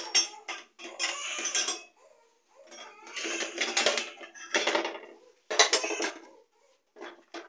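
Steel pan supports and burner parts of a gas stove clinking and scraping against each other as they are handled, in several short bursts of metallic clatter.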